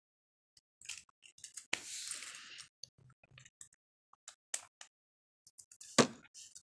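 Beyblade spinning in a plastic stadium: faint, scattered light ticks and clicks, with a short hiss about two seconds in and one sharp click near the end.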